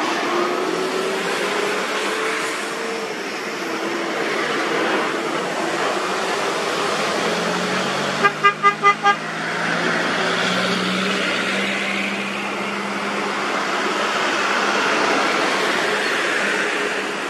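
A truck horn gives four short toots in quick succession about eight seconds in. Diesel truck engines and tyre noise run throughout as trucks approach and pass.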